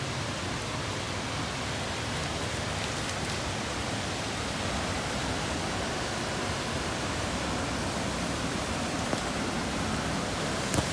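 Waterfall: water pouring over rocks makes a steady, even rush, with a couple of small clicks near the end.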